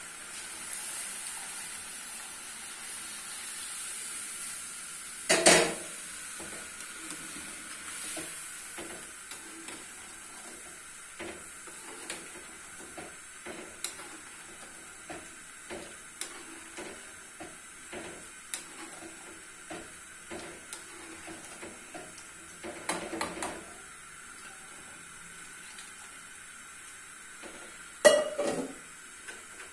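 A spoon stirring green-chickpea, chicken and potato curry in a cooking pot, with many small scrapes and clinks against the pot over a steady sizzling hiss. There are louder clanks about five seconds in, around 23 seconds and near the end.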